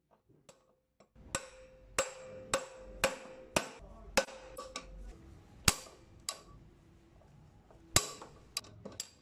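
Steel tubular box spanner and its tommy bar knocking against each other, about a dozen sharp metallic knocks, each with a short ringing note, uneven in spacing and loudest about six and eight seconds in.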